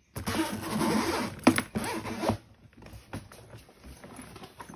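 Zipper on a hard-shell suitcase being pulled open around the case, a rasping run of about two seconds with a couple of sharp clicks partway, then faint handling ticks.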